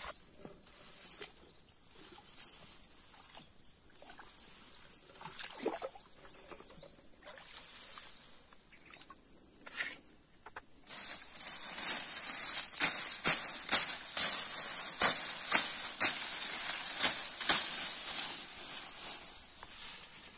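Steady high-pitched drone of insects. Over the second half, a run of louder sharp pulses comes in, about two a second.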